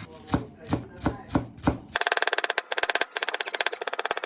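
A kitchen knife chopping on a cutting board: a few slow, even strokes, then, after a cut, rapid steady chopping of the kind used to shred vegetables.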